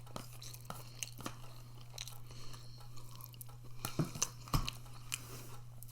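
A person chewing food close to the microphone: soft wet mouth clicks, with a few louder bites about four seconds in. A steady low hum runs underneath.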